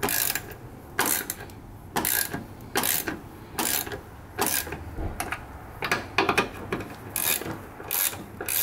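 Hand ratchet clicking in a string of short bursts, about one or two a second, as it turns the upper mounting bolts of a new rear shock absorber down tight.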